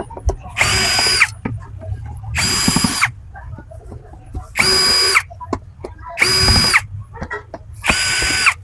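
Cordless drill-driver running in five short bursts, each well under a second, backing out the screws that hold the glass cover on an LED street light, with small knocks of the screws and housing between bursts.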